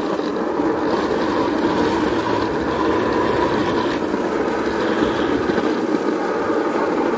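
Steady running noise of a rail vehicle moving along a railway track.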